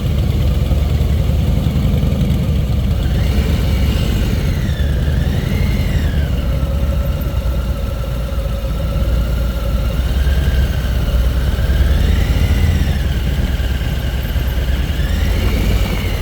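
Wind rumbling on the microphone during a bike ride. From about three seconds in, the bike's motor whine swells and falls in pitch several times, a warbling sound like the Jetsons' car.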